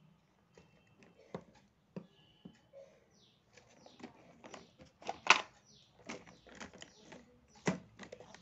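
Cosmetic bottles, jars and boxes being picked up and set down on a wooden dressing table: scattered light clicks and knocks, coming thicker after about three seconds, with the loudest knock a little past five seconds.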